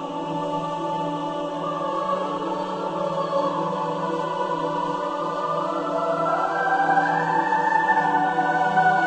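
Choral music: voices hold long notes over a steady low drone, swelling louder and rising in pitch through the second half.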